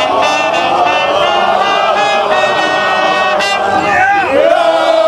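A brass band playing while a group of men sing and chant along loudly. Near the end the voices swoop into a long held note.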